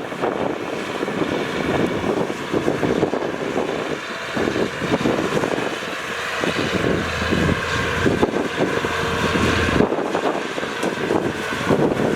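Heavy earthmoving machinery running: dump truck and bulldozer diesel engines working, with wind noise on the microphone.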